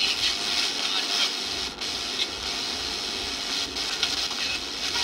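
Static hiss from a GPX AM/FM portable radio's speaker as its tuning dial is turned, with no station coming in clearly. The hiss dips briefly twice.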